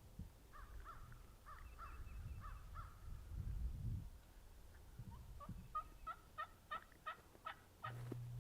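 Wild turkey yelping in two runs of evenly spaced notes, the second faster at about three notes a second. A low rumble comes about three and a half seconds in.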